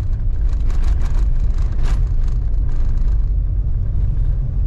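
Cabin road noise of a vehicle driving on an unsealed dirt road: a loud, steady low rumble from the tyres and body shaking on the rough surface, with scattered short knocks and rattles, mostly in the first half.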